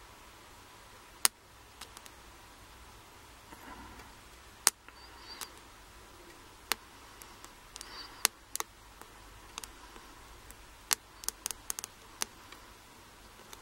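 Lock pick and tension tool working the pin stack of an Abus 34/55 padlock during single-pin picking: scattered sharp metallic clicks with faint scraping in between, and a quick run of several clicks near the end, as the pick slips off a pin.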